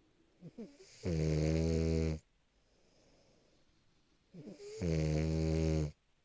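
French bulldog snoring: two loud snores about three and a half seconds apart, each a steady low buzz lasting about a second and opening with a short sputter, with faint breathing between them.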